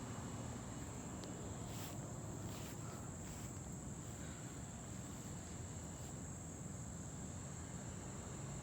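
Insects chirring in a steady chorus, a continuous high-pitched buzz, over a low even background rumble, with a few faint clicks about two to three seconds in.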